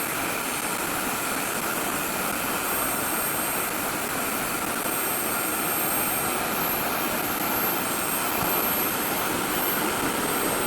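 RevAir reverse-air hair dryer running steadily, its suction fan pulling a section of dampened hair into the tube: an even rush of air with a faint steady whine.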